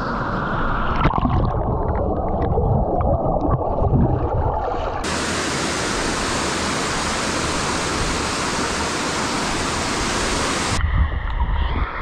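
Waterfall water rushing over rock slabs and splashing into a pool, a steady noisy rush. About five seconds in it turns brighter and fuller, and it changes again shortly before the end.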